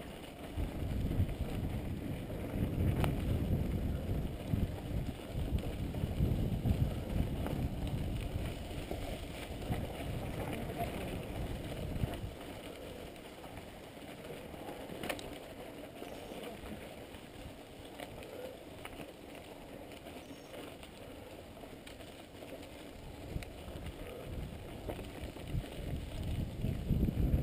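Mountain bike riding over a rough dirt and gravel track: tyre rumble, rattling of the bike and wind on the action camera's microphone. It is louder for the first dozen seconds and again near the end, with an occasional sharp knock.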